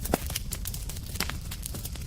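Wood campfire crackling: irregular sharp pops and snaps over a steady low rumble, with a louder pop just after the start.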